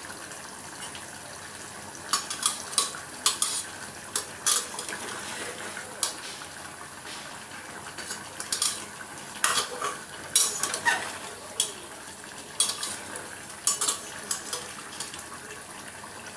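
Chicken and spice masala frying in a kadai while being stirred: a steady sizzle under irregular scrapes and knocks of the stirring utensil against the pan, most of them between about two and fourteen seconds in. This is the kosha stage, the meat being stir-fried in its masala on high heat.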